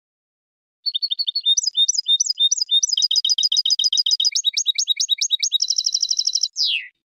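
European goldfinch song: a quick run of high repeated notes that switches from one kind of note to the next every second or so, speeds up into a fast trill and ends on one falling slurred note. It is a tutor recording for teaching young goldfinches to sing.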